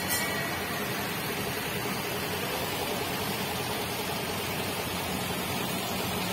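Small amusement-park tourist train running: a steady rushing noise with a faint low hum under it.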